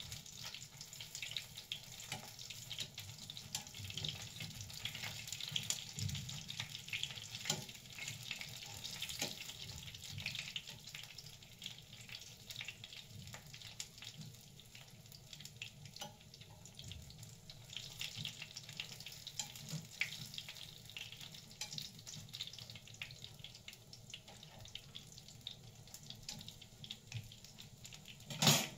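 Food frying in a pan on a gas stove, a steady crackling sizzle with small clicks of metal tongs turning the pieces. A single louder clack comes just before the end.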